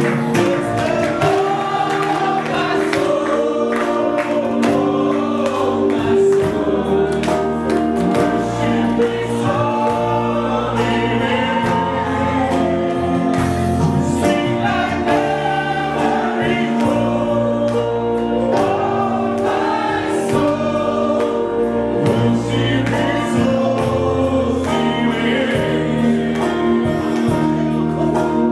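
Gospel-style worship music: a group of voices singing over sustained keyboard chords and a bass line.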